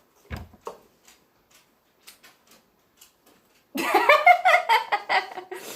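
A few faint clicks and a soft thump of small plastic items being handled, then, about two-thirds of the way in, loud laughter that keeps going.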